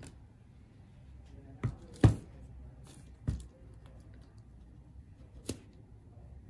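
Four short, sharp knocks of tall glass jar candles being handled and set against the table and each other, the loudest about two seconds in.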